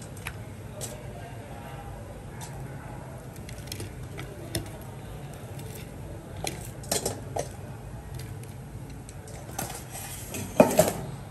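Kitchen utensils and dishes clinking and clattering in scattered knocks, with a louder clatter near the end, over a steady low hum.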